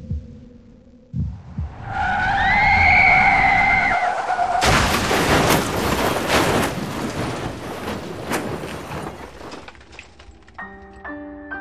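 Low thumps, then a pitched screech for about two and a half seconds, followed by a loud crash with shattering and clattering that lasts several seconds and dies away. Piano music comes in near the end.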